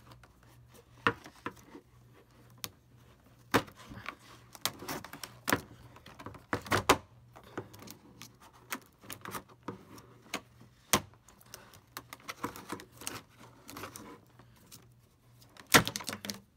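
Scissors cutting through stiff plastic clamshell packaging: irregular sharp snips, clicks and plastic crackles, with the loudest snap near the end.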